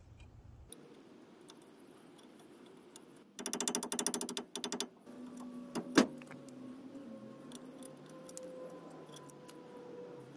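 Small metal clicking and rattling as pliers work a cotter pin and nut lock cap off a wheel hub's spindle nut. There is a quick run of rattling clicks about three and a half seconds in, and one sharp metallic click about six seconds in.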